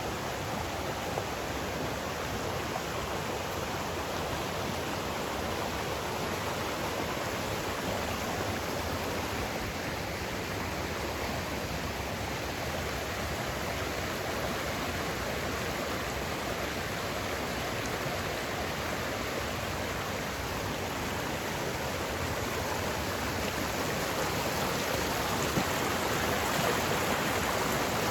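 Steady rushing of a flowing creek, an even, unbroken wash of water noise.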